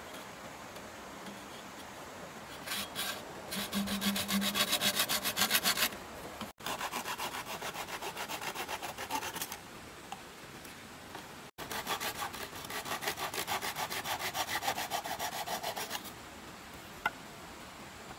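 Hand saw cutting through bamboo tubes in quick, even back-and-forth strokes, about five a second, in three runs of a few seconds each.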